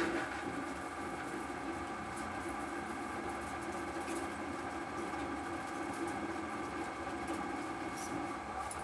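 ProtoTRAK SLX CNC lathe cutting under program: the spindle runs with a steady hum of several held tones while the turning tool shaves metal from the ball end of a hitch-ball part, with a few faint ticks.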